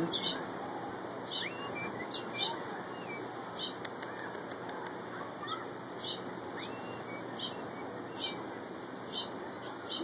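Small finches giving short, sharp, high chips about once or twice a second, with a few brief gliding call notes and a flutter of wings as the birds leave the railing, over a steady background hiss.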